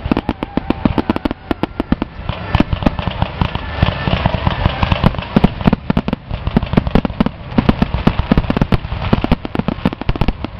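Aerial fireworks display: a rapid, unbroken barrage of mortar-fired shells bursting, several bangs a second, with crackling filling the gaps between them.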